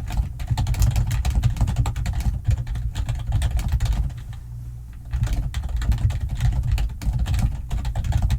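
Fast typing on a computer keyboard, a dense run of key clicks that stops for about a second midway, then resumes. A steady low hum runs underneath.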